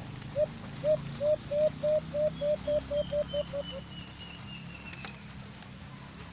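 A bird calling: a run of about sixteen short notes that come faster and faster and fade out, ending about four seconds in. Over it, fainter high notes slide downward, and a low steady hum runs underneath.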